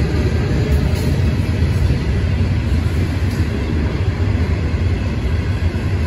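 Norfolk Southern coal train's hopper cars rolling past, a steady low rumble of steel wheels on rail.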